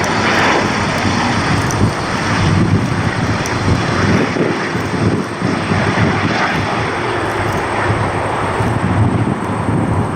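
Aircraft engine noise, loud and fairly even, a dense roar with no clear pitch.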